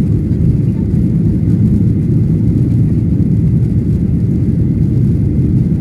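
Steady low rumble of a Boeing 737's engines and airflow heard inside the cabin during the climb after takeoff.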